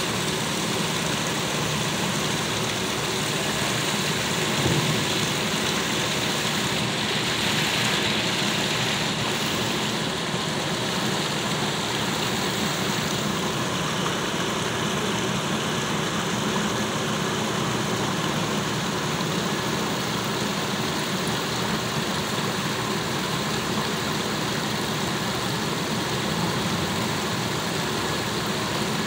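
Water from a stepped stone fountain running down its ledges and splashing into the pool, a steady, even wash of sound.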